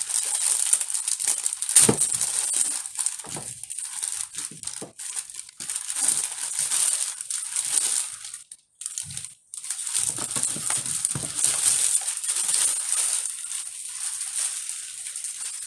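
Packing material crinkling and rustling as a resin doll is unwrapped and handled, with small clicks throughout and a short pause about eight and a half seconds in.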